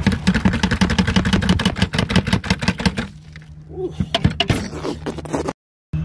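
Dry, gritty vacuumed carpet debris pouring and rattling out of a clear plastic vacuum canister into a bucket: a dense crackle for about three seconds, then a few scattered knocks, over a steady low hum.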